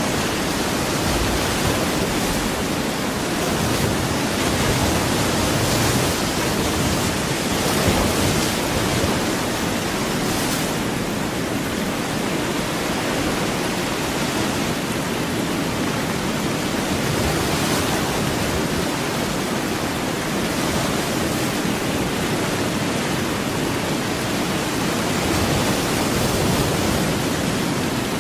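Steady, even rushing noise with no tones or distinct events, swelling only slightly now and then: a continuous masking noise track of the kind laid under subliminal audio.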